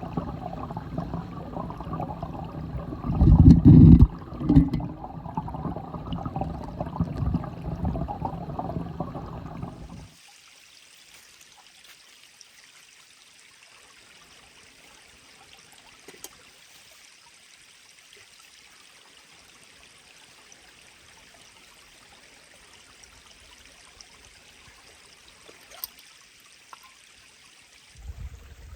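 Stream water flowing: first a louder, fuller rush with two heavy low thumps about three and four and a half seconds in, then, after an abrupt cut about ten seconds in, a fainter, even, high hiss of running water.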